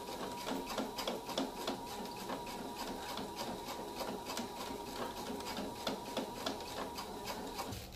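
Computerised sewing machine running, its needle clicking rapidly and evenly over a steady motor whine as it stitches back and forth to lock down a fabric strap. It stops abruptly just before the end.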